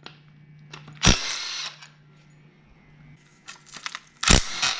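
A power tool running in two short bursts, about a second in and again near the end, backing out the 13 mm timing-cover bolts on a Ford 4.6 V8, with a few light clicks between.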